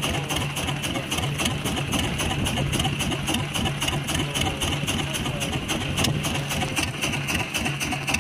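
Small fishing boat's engine idling steadily with a rapid, even beat.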